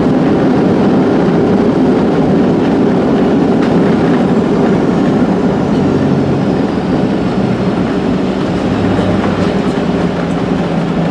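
Cabin noise inside a Boeing 737-700 rolling out on the runway after landing: a steady rumble of wheels and engines that eases slightly as the jet slows, with a faint falling whine in the middle.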